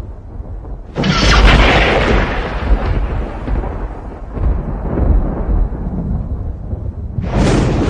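Violent thunder: a sharp crack about a second in that fades into a long rumble, then a second crack near the end, over a continuous deep rumbling.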